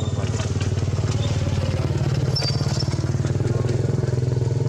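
A small engine running steadily at an even, fast pulse, like a motorcycle's.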